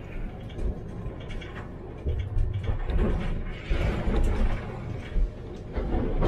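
Tram running along the track: a low rumble of wheels on rails that swells and fades several times, with scattered clicks.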